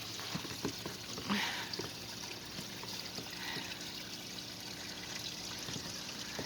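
Pond filter water trickling and splashing steadily down a small backyard waterfall into a koi pond. A short louder sound cuts in briefly about a second and a half in.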